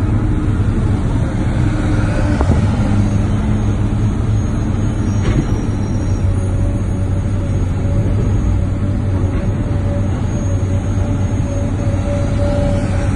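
Heavy diesel engine running steadily at an even speed, a constant low hum. A faint steady whine joins in about six seconds in.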